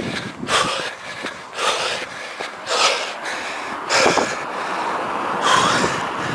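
A man breathing hard while running, heavy panting breaths about once a second: he is out of breath from sprint exercise.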